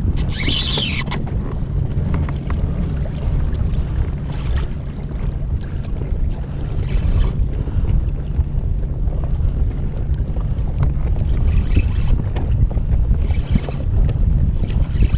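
Wind buffeting a GoPro Hero5's microphone on open water, a loud steady low rumble, with short hissing bursts now and then.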